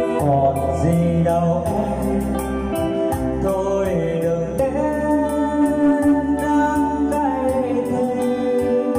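A man singing karaoke through a microphone and amplifier over an electronic keyboard backing track with sustained organ-like chords.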